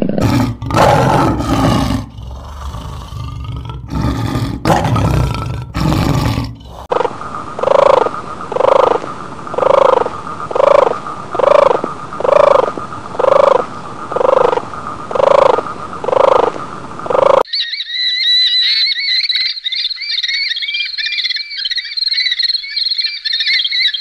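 A tiger roaring and growling. Then a tortoise gives about a dozen short, evenly spaced calls. After that comes a bird's rapid, high-pitched chirping calls.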